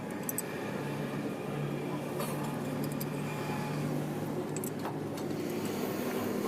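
A vehicle engine running steadily with a low hum, with a couple of light clicks about two and five seconds in.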